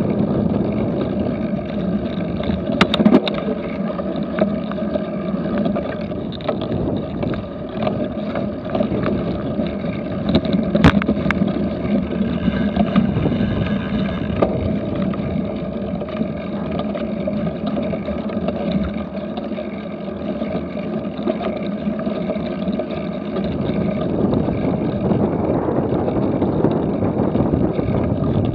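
Wind rushing over an action camera's microphone while a cyclocross bike is ridden across a grass course, with the bike rattling over the rough ground. Two sharp knocks stand out, about three seconds and eleven seconds in.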